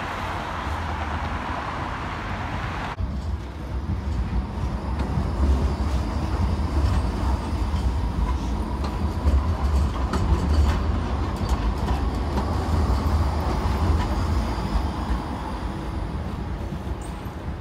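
Low, heavy rumble of a large vehicle passing close by, with a noisy wash above it. The sound changes abruptly about three seconds in and grows louder through the middle before easing off near the end.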